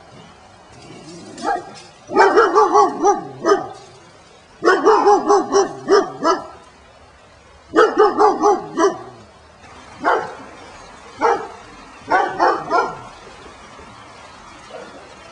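A dog barking in runs of several quick barks, with short pauses between the runs; the barking thins out to single barks and stops a few seconds before the end.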